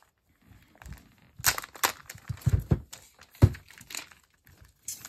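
Packaging wrap around an Echo Show 5 being peeled open and handled: irregular crinkling and tearing with a few soft thumps, the loudest thump about three and a half seconds in.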